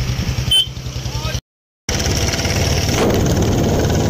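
Motorcycle engine running steadily while riding, with a sharp click about half a second in. The sound cuts out completely for about half a second, then the engine resumes with more rushing noise.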